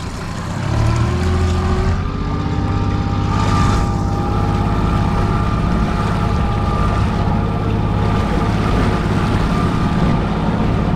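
Motorboat engine running steadily at trolling speed, its pitch rising a little between about one and two seconds in and then holding even, over the rush of water and wind.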